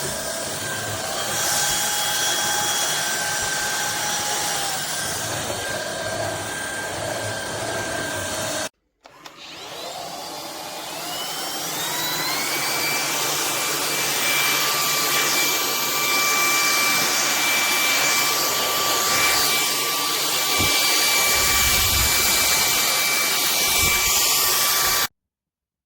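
Vistefly V15s Max cordless stick vacuum running, a steady high motor whine over the hiss of airflow. About nine seconds in it cuts out briefly, then spins back up with a rising whine over a few seconds. It runs steadily again until it stops abruptly near the end.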